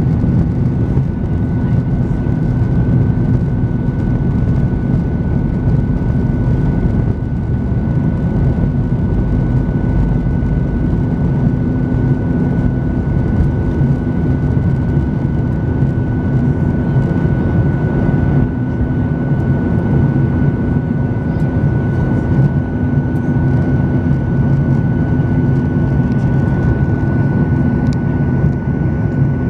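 Boeing 737-900ER's CFM56-7B turbofan engines at takeoff thrust, heard inside the cabin: a steady, loud rumble with a high, even fan whine through the takeoff roll and into the climb.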